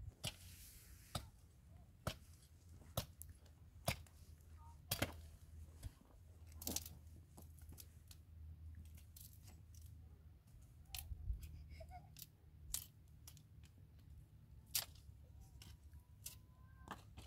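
Irregular sharp clicks and snips, about a dozen spread out with pauses between them, over a faint low hum.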